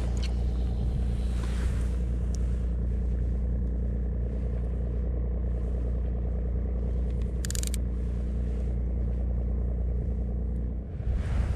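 Steady low motor drone with a hum, with a short crackle about seven and a half seconds in and rougher wind-like noise near the end.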